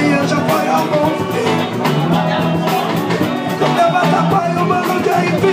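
A live band playing: guitar and drums on a steady beat, with a trumpet playing the melody line.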